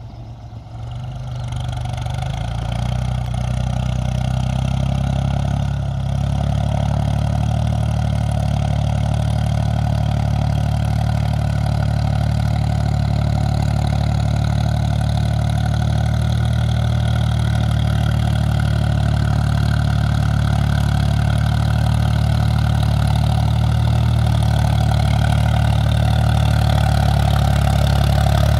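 Ford 4610 tractor's three-cylinder diesel engine working as the tractor ploughs through a flooded rice paddy. It grows louder over the first few seconds as the tractor draws near, then runs steadily, getting slowly louder toward the end.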